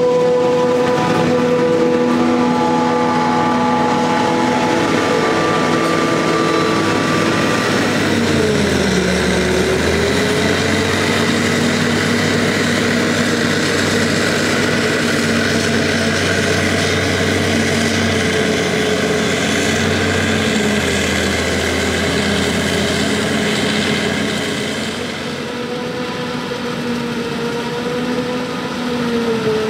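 Claas Jaguar 870 forage harvester running while chopping maize: a loud, steady mechanical whine over the engine. About eight seconds in the pitch sags and comes back, with a deeper rumble underneath until near the end, when it eases a little.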